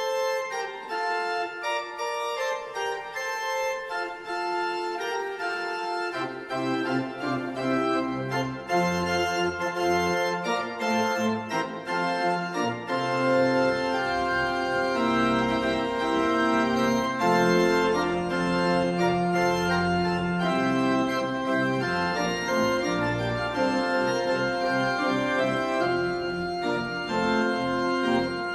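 Church organ playing slow, held chords; deep bass notes come in about six seconds in, and the music grows fuller from there.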